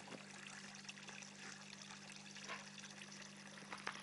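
Faint trickling of water in a garden pond over a steady low hum, with a few light clicks near the end.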